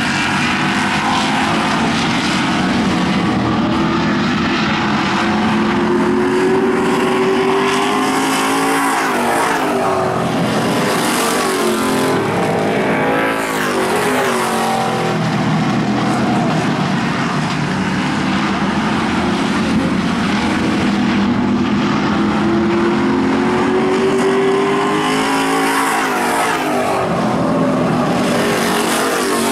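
A field of Super Street stock cars racing on a short paved oval. Their engines climb in pitch as they accelerate and drop back as the drivers lift, twice over.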